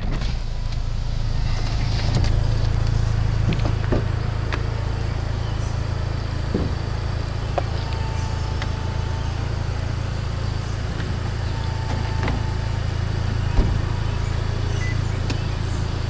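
2016 Buick Cascada's power fabric top folding down: a steady low motor hum with a few clunks and clicks as the roof and rear deck lid move.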